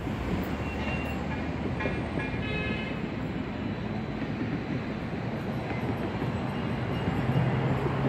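Steady rumble of road traffic on a bridge, with faint high-pitched tones in the first few seconds and a low hum building near the end.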